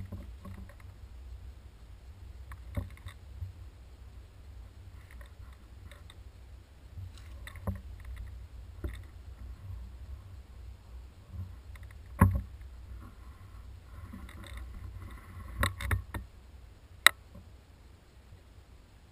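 Low rumble of wind and handling noise on a rifle-mounted camera, with scattered knocks and rustles and one sharp click near the end.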